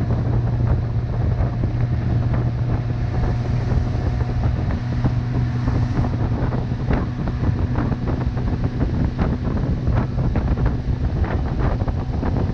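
Bass boat's outboard motor running at speed, a steady low drone, with heavy wind buffeting on the microphone.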